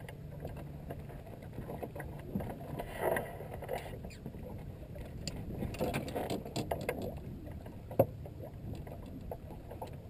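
Knocks, bumps and scuffs of people moving about a small boat's deck while handling a large striped bass, with one sharp knock about eight seconds in. A low steady hum fades out after the first second.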